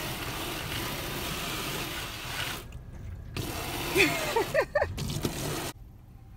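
Garden hose spray hitting a car window, heard from inside the car: a steady rush of water that breaks off for under a second, starts again with a few short squeals about four seconds in, and stops shortly before the end.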